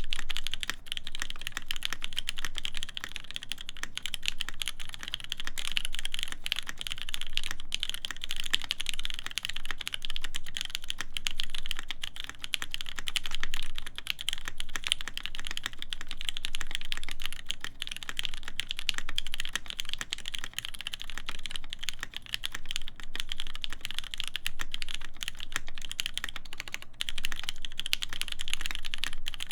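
Continuous fast typing on a mechanical keyboard with lubed vintage Cherry MX Black linear switches, forged carbon plate and GMK keycaps: a dense, even stream of key clacks.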